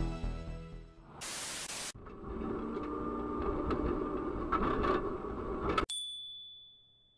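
Music fades out, then a short burst of static hiss. The running sound of a tram heard from inside its cab follows, a steady rumble with a faint hum, cutting off abruptly about six seconds in to a single high ringing tone that fades away.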